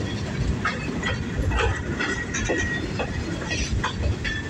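CN freight train rolling past, railcar wheels clattering over the rails with a steady low rumble and a thin wheel squeal now and then.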